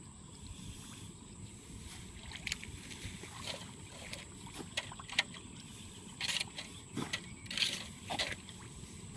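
Irregular wet scrapes and splashes of rice seedling mats being sliced and lifted from a muddy, water-logged nursery bed, a dozen or so short sounds starting about two seconds in, over a steady low rumble.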